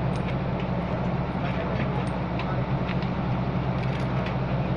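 Heavy machine's diesel engine running steadily with a low, even drone and faint scattered ticks and clatter above it.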